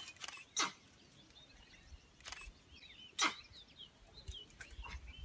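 Several separate clicks of a reflex camera shutter, the loudest two about half a second and three seconds in, with small birds chirping faintly in the background.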